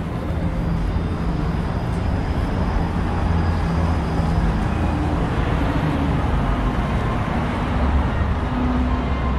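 Steady road traffic noise from motor vehicles running and passing on a busy city street, heaviest in a low rumble.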